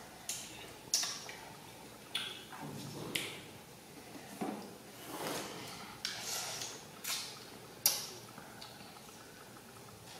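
Close-miked eating sounds of children biting into and chewing juicy green-skinned orange segments. Wet smacks, sucking and sharp mouth clicks come irregularly, about one a second, with short slurping bursts between.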